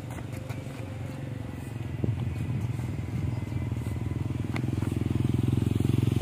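A steady low engine hum that grows louder from about two seconds in, with a few faint sharp clicks.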